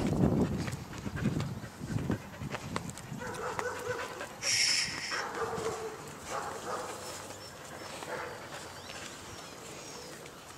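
A dog panting close up for the first couple of seconds, then fainter drawn-out dog whines, with a brief high-pitched squeal about four and a half seconds in.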